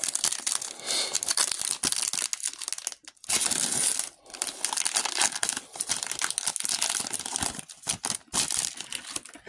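A foil trading-card pack wrapper being torn open and crinkled by hand: a dense, sharp crackling with a short pause about three seconds in.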